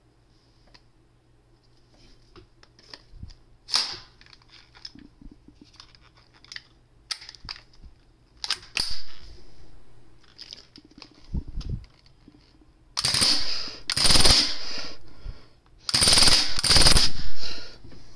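Black toy submachine gun fired in rapid bursts: scattered clicks and a few short bursts at first, then two long bursts of about a second and a half each near the end.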